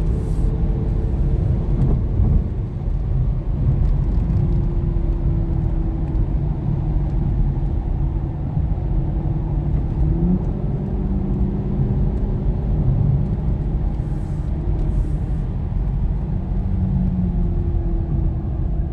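Aston Martin DB9's six-litre V12 running at a steady cruise with road rumble, heard from inside the cabin with the top up; the engine tone steps up slightly about ten seconds in.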